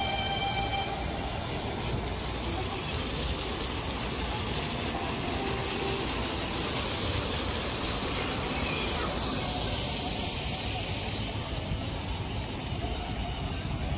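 Water jets of a plaza fountain splashing into the basin: a steady hiss of falling water over a low background rumble. The hiss thins about ten seconds in.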